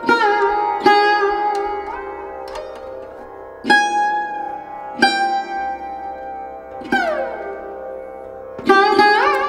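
Background music: a plucked string instrument playing slow single notes that ring out, one sliding down in pitch about seven seconds in and another sliding up near the end, over a steady drone.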